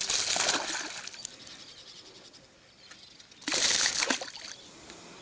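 A hooked fish thrashing at the water's surface on a topwater lure, sending up splashes: one burst of splashing in the first second and another about three and a half seconds in, with quieter water movement between.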